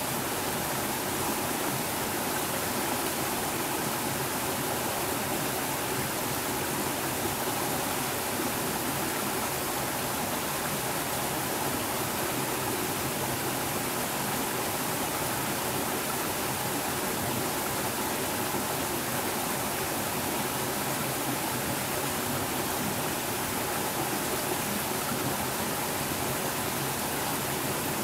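Small mountain stream babbling over a low rocky cascade into a pool: a steady rush of water.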